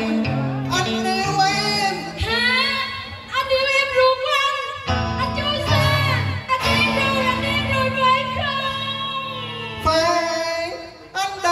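Cải lương duet singing over live instrumental accompaniment. A woman sings held, wavering notes with vibrato, and a man's voice takes the line near the end.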